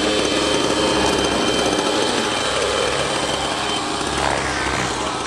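Glow-fuel (nitro) engine of a 700-size RC helicopter running at idle just after being started, a steady small-engine buzz with a slightly wavering pitch.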